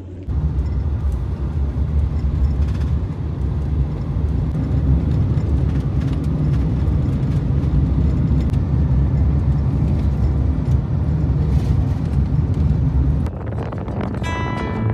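Steady low rumble of a vehicle on the move, starting suddenly and cutting off about a second before the end, when music comes in.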